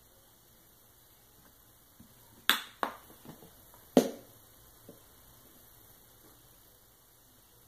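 Sharp clicks and knocks as a plastic ketchup squeeze bottle is handled and set down on the table: two close together about two and a half seconds in, then a louder knock at about four seconds, over a faint steady hum.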